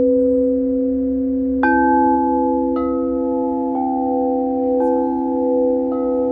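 Quartz crystal singing bowls: two low bowl tones held in a steady hum while higher notes are struck about once a second, five times, each strike ringing on over the drone.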